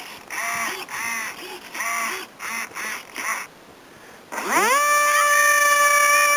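A run of about five short harsh calls, then the RC plane's electric motor and propeller spinning up to a steady whine, held for about two seconds, and winding down near the end.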